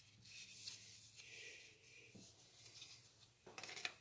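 Faint rustling and scraping of hands handling the phone box and its packaging, with a brief louder scrape near the end.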